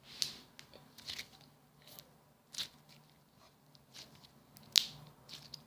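Mixed fluffy slime with glitter being squeezed in the hand, giving off scattered small crunchy crackles and clicks, the sharpest near the end.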